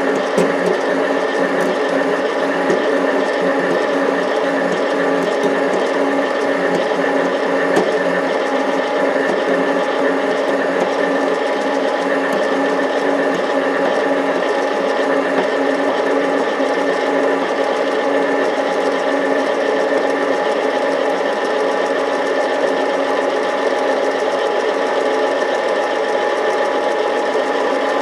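TV-4 'Shkolnik' bench lathe running steadily under power while milling down a lathe tool bit: a continuous motor-and-gear whine made of several steady tones at an even level.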